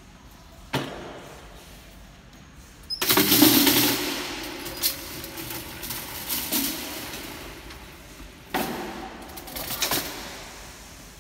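Plastic tote boxes rolling on the gravity roller tracks of a pipe-and-joint karakuri chute rack: a rapid rattling clatter of the rollers with sharp knocks as boxes strike the stops. One knock comes about a second in, a loud clattering run starts about three seconds in and fades over several seconds, and another knock and rattle follows near the end.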